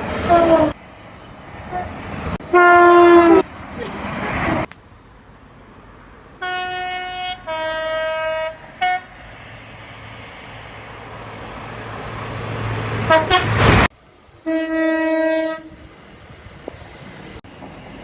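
A series of short train horn blasts from several trains, cut one after another; one is a two-tone horn sounding a higher note then a lower one. In between, a passing train's low rumble grows louder and cuts off suddenly.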